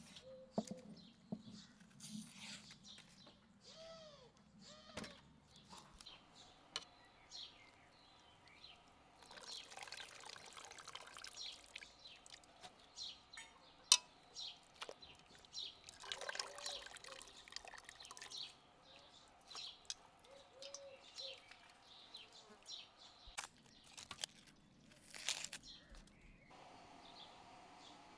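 Birds chirping over quiet cooking sounds: water splashing and dripping as blanched grape leaves are lifted from a pot with metal tongs into a metal colander, with one sharp metal clink about halfway through.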